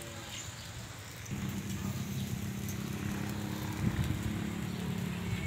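Charcoal fire crackling and sizzling under a whole pig roasting on a spit, with scattered sharp pops. About a second in, a low steady hum joins it.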